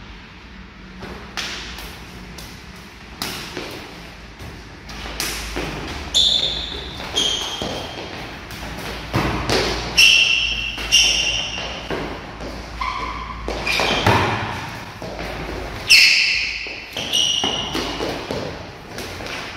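Irregular slaps and thuds of forearms and hands clashing in fast Wing Chun chi sao sparring, mixed with footfalls and brief high squeaks of shoe soles on a wooden floor, echoing in the room. The hardest hits land about ten and sixteen seconds in.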